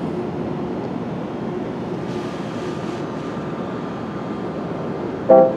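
Steady low rumbling background noise with a brief hiss about two seconds in; near the end, loud pitched musical notes begin.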